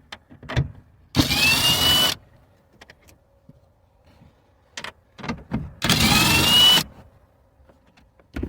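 Electric drill with a 10 mm socket running in two short spells of about a second each, its motor whine rising as it spins off the two 10 mm taillight nuts. Light clicks and knocks come between the two runs.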